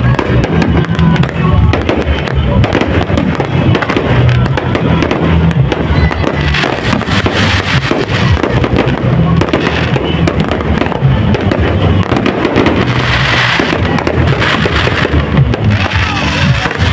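Fireworks going off in a dense, continuous stream of sharp bangs and crackles, with music playing loudly underneath.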